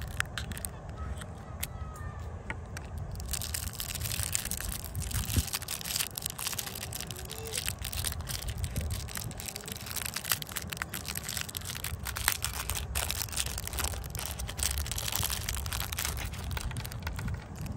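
Clear plastic candy wrapper crinkling and crackling as fingers work it open, the crackle growing dense about three seconds in, over a steady low rumble.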